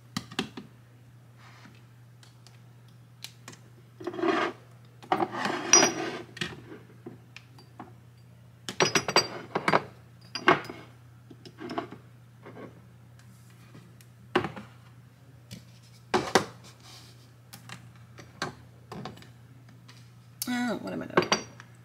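Plastic and glass bottles and jars being picked up, shifted and set down on a cabinet shelf: scattered light knocks and clinks with a few short scrapes, over a faint steady low hum.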